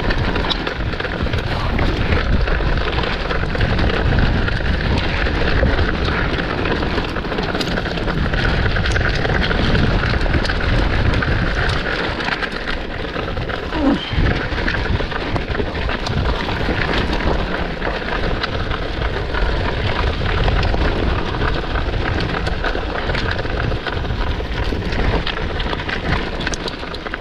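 Mountain bike riding fast down wet dirt singletrack, heard from a camera mounted on the bike: a steady rush of wind and tyre noise with rattles and knocks from bumps along the trail.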